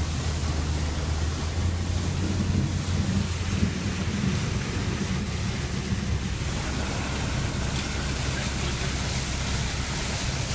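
Steady low rumble of a vehicle on the move, with wind buffeting the microphone.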